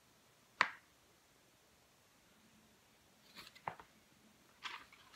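Pages of a large paperback picture book being handled and turned: a sharp click about half a second in, then a few soft paper rustles and ticks over the last two seconds.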